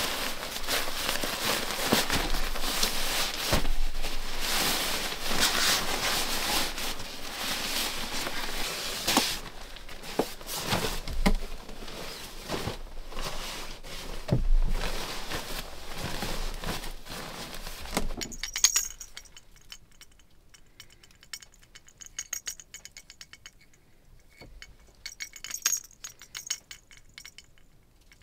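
Nylon sleeping bag and its stuff sack rustling and swishing as the bag is pulled out and spread out, for about the first eighteen seconds. Then it goes much quieter, with only light clicks and a few small chinking sounds.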